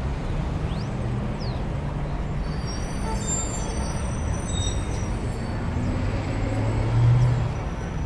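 Jungle ambience: a steady low rumbling bed of background noise with a few thin, high calls over it, two short chirps about a second in and high whistling calls from about two and a half to five seconds. The low rumble swells louder about seven seconds in.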